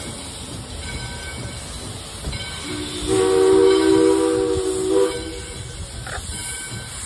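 Steam whistle of No. 40, a 2-8-2 Mikado steam locomotive, blowing one long blast as the train departs. It comes in about three seconds in with a low note, other notes join at once to sound together as a chord, and it cuts off about two seconds later, over a steady rumble.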